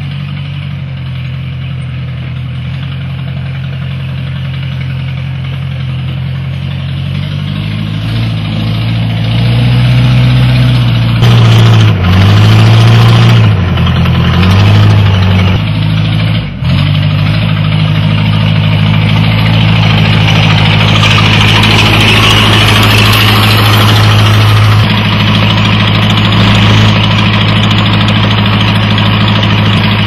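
Case bulldozer's diesel engine running, first at a steady lower speed, then revving up about eight seconds in. Its pitch swings up and down for several seconds with a brief dip near the middle, then holds steady and louder under throttle.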